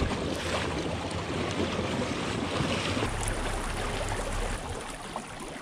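Water washing along the hull of a pedal-drive fishing kayak under way, a steady rush that eases off near the end.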